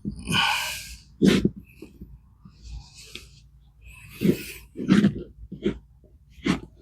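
Hands rummaging through loose compost for potatoes: a string of short, irregular rustles and scrapes.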